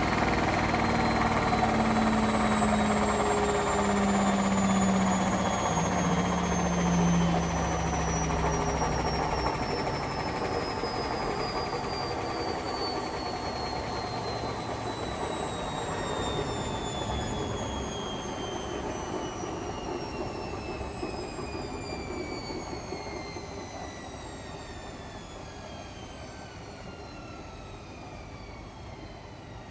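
Hotpoint washing machine winding down from its final spin: a high whine falling steadily in pitch as the drum slows, over a heavy rumble that dies away about ten seconds in, the whole sound getting steadily quieter. The rumble comes from worn drum bearings.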